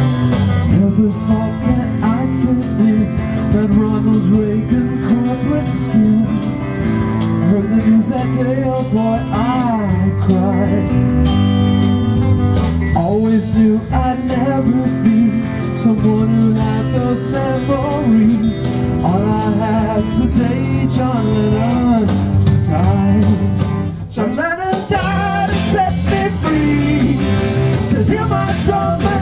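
Live rock band playing an instrumental passage: bass, drums and acoustic guitar under a lead electric guitar whose notes bend up and down in pitch.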